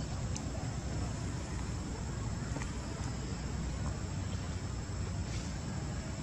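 Steady outdoor background noise: a low rumble with a faint, steady high insect drone over it.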